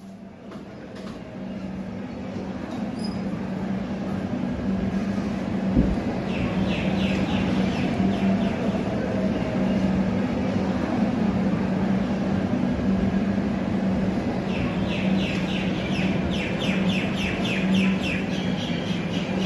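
A steady low rumbling drone of background ambience fades in at the start, with a single thud about six seconds in. Two spells of rapid high chirping sit on top of it, one from about six seconds and another from about fifteen seconds.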